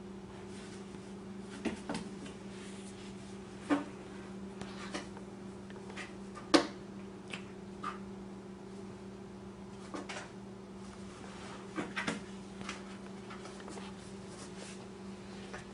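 Scattered light knocks and taps, irregular and the loudest about six and a half seconds in, from a kitten batting and rolling against a cat house on a tile floor, over a steady low hum.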